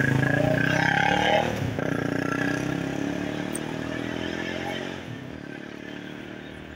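A motor vehicle's engine running close by, starting suddenly and loudest at first, then slowly fading.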